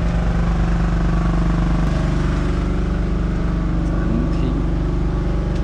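Liveaboard dive boat's engine running: a steady deep drone, its pitch shifting slightly about two seconds in.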